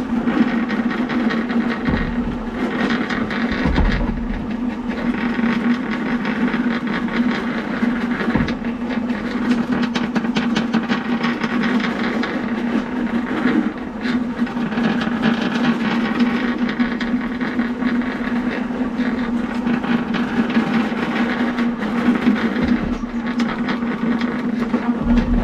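Electric drain-snake machine running, its motor giving a steady hum while the spinning cable rattles as it is fed down into a clogged main sewer line.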